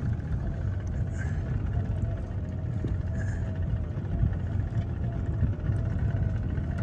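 Crab pot puller running steadily as it winches a crab pot up: a low motor rumble with a faint, slightly wavering whine.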